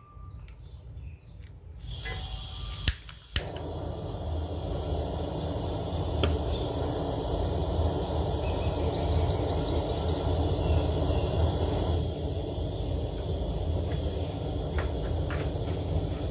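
Gas stove burner being lit: the gas starts to hiss about two seconds in, two sharp clicks follow as it catches, then the flame burns with a steady rushing noise under the pot.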